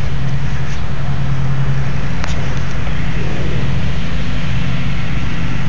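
A motor's steady low drone with a constant hum under an even hiss, loud and unchanging.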